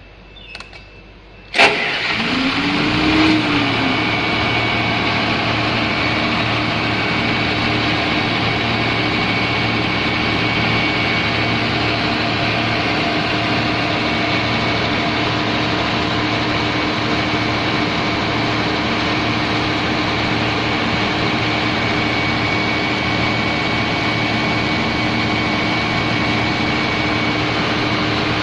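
Komatsu SA6D110 six-cylinder diesel engine of a 130 kVA generator set starting: it catches suddenly about a second and a half in, its pitch swings up and back down briefly, then it settles into steady running.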